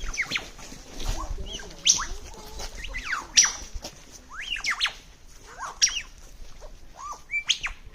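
Superb lyrebird singing its mimicry song: a quick, irregular string of varied calls copied from other sounds, with sharp high notes sweeping steeply downward and shorter arched whistles in between.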